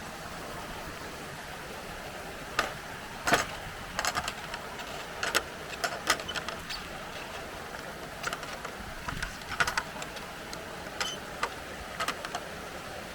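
Irregular sharp footstep crunches, like walking on a gravel or stony path, over a steady rushing background.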